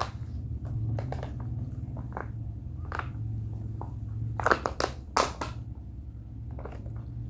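A thin plastic cup of water crinkling and clicking as it is handled and drunk from, with the sharpest crackles about four and a half and five seconds in. A steady low hum runs underneath.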